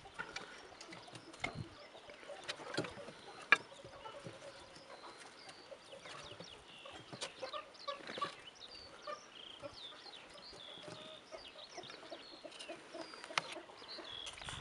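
Chickens clucking with birds chirping, many short calls scattered throughout, broken by a few sharp clicks, the loudest about three and a half seconds in.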